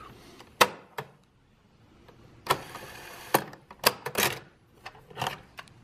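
Piano-key buttons of a Mattel Aquarius Data Recorder cassette deck being pressed: a string of sharp mechanical clicks and clunks, about eight of them, with a brief stretch of faint steady noise near the middle.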